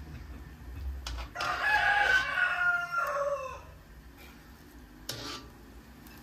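A rooster crowing once, one call of about two seconds that drops in pitch at the end. Soft knocks come just before it and again near the end.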